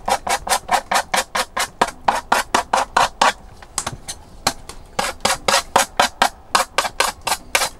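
Knife chopping on a wooden cutting board in quick, even strokes, about five or six a second, with a pause of about a second a little before the middle.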